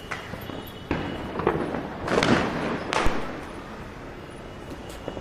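Firecrackers going off: several sharp bangs between about one and three seconds in, then quieter.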